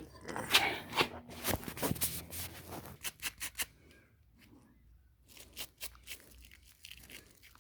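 Clicking and knocking from hand tools and parts being handled, a quick run of sharp clicks over the first three or four seconds, then only a few faint ticks.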